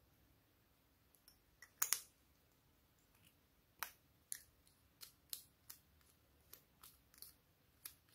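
Sharp clicks of small carrot-shaped plastic tubes and their caps being handled: a loud double click about two seconds in, then a string of lighter clicks every half second or so.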